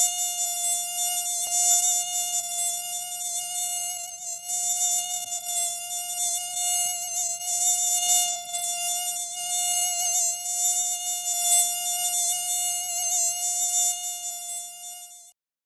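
A mosquito's whine: one steady high-pitched buzz from its wingbeats, wavering slightly in pitch and swelling and fading in loudness. It cuts off suddenly near the end.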